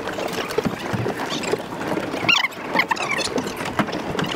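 Footsteps and the knocking and rattling of carried fishing gear as several people walk along a wooden walkway, with a few short high squeaks near the middle.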